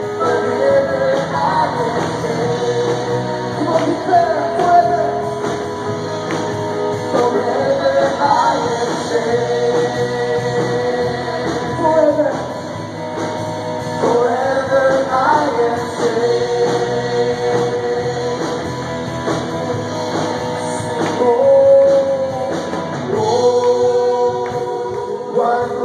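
Live worship band playing a contemporary worship song, with acoustic and electric guitars under lead singing.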